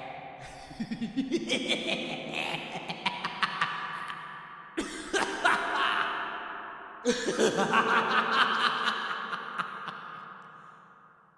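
Hysterical, maniacal laughter in rapid pulsing bursts. It breaks off and starts afresh twice, then fades away near the end.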